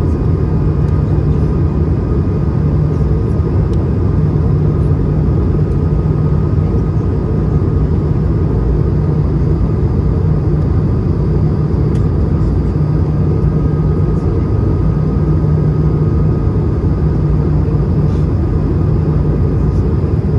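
Steady cabin noise of an Airbus A220-300 on approach with flaps extended: airflow and its Pratt & Whitney PW1500G geared turbofan engines making a deep, even rumble, with a faint steady whine above it.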